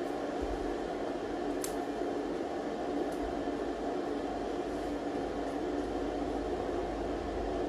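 Leafy green vegetables being picked by hand, with soft rustling and a couple of faint snaps of stems breaking, over a steady background hum.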